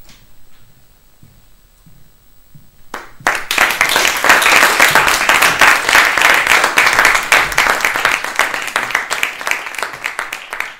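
Audience applauding. It breaks out about three seconds in after a quiet pause and tapers off near the end.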